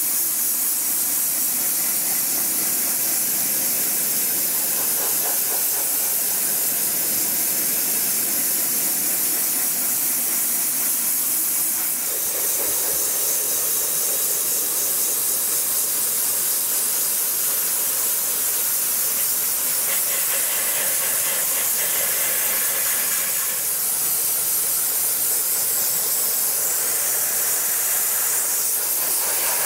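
Dry ice blasting gun firing a continuous jet of compressed air and dry ice pellets at a car's plastic wheel-well liner: a steady, loud hiss. Its tone shifts slightly about twelve seconds in.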